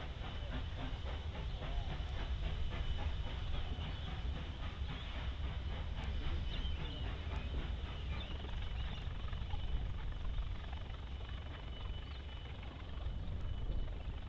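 NSWGR 5917, a 59 class 2-8-2 steam locomotive, pulling its passenger train away, heard as a low rumble with a regular beat that fades as the train draws off into the distance.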